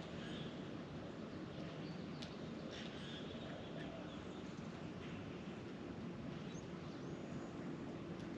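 Faint, scattered bird chirps over a steady low hum and background hiss.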